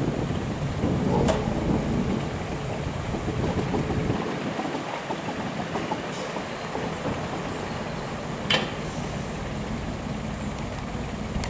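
1961 Hudswell Clarke 0-6-0 diesel shunting locomotive running as it moves slowly along the track, a low engine rumble that eases off after about four seconds. Two sharp knocks, one about a second in and a louder one about eight seconds in.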